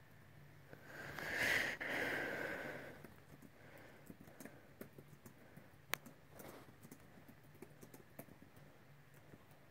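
A brief rustle about a second in, then scattered light clicks of typing on a laptop keyboard, one click sharper than the rest near the middle.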